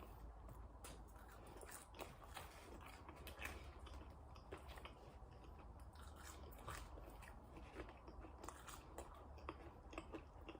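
Faint close-miked chewing of McDonald's french fries: soft, irregular mouth clicks and light crunches, over a low steady hum.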